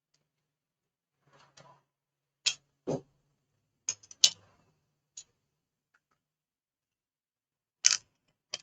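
A string of about seven sharp clicks and taps from small hard laptop parts and tools being handled while the NVMe drive is taken out of the laptop.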